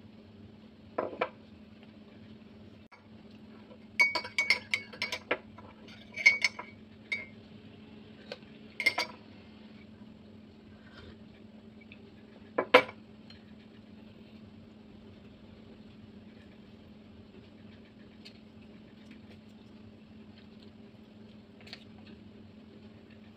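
Metal spoon clinking against ceramic crockery (mug and plate): a single clink about a second in, a quick run of clinks from about four to seven seconds, a couple more near nine seconds, and one sharp, loud clink near thirteen seconds.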